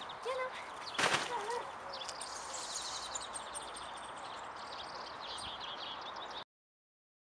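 Small birds chirping and trilling over steady outdoor background noise, with one sharp impact sound about a second in. The sound cuts off abruptly near the end.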